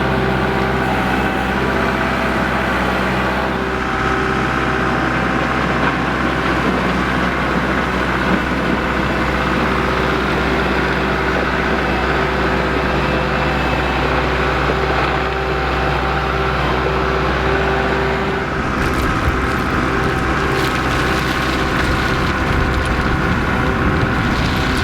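An engine running steadily with a constant hum. About eighteen seconds in, the low rumble drops and irregular knocking and rattling begins.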